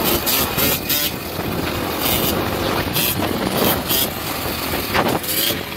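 Sport quad (ATV) engine running hard as the quad is held in a wheelie, its sound surging and dropping again and again, with other quads' engines around it.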